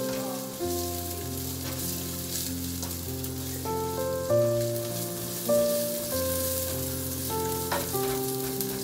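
Sliced onion and ginger sizzling in a frying pan while being stirred with a spatula, with a few knocks of the spatula against the pan. Background music of slowly changing held notes plays under it.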